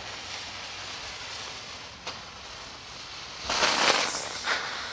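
Fuse of a novelty tank firework catching and fizzing in a short hiss about three and a half seconds in, with a smaller fizz just after, over a steady background hiss.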